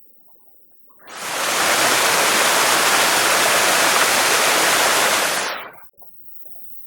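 Waterfall, a 22 m fall, with an even rushing roar of falling water. It fades in about a second in, holds steady, then fades out near the end.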